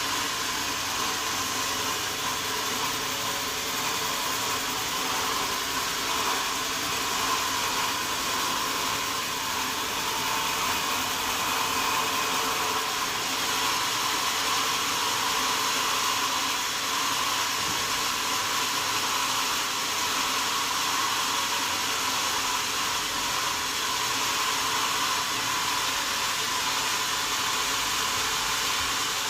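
Sawmill machinery running steadily, an even, unbroken rushing noise with no pauses.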